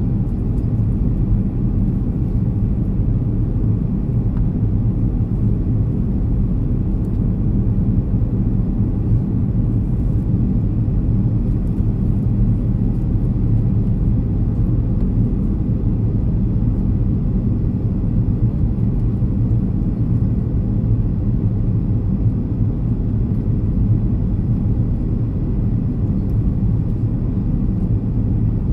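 Cabin noise inside a Boeing 737-300 airliner descending on approach with flaps extended: a steady low rumble of its CFM56-3 engines and the rushing air, heard from a window seat over the wing.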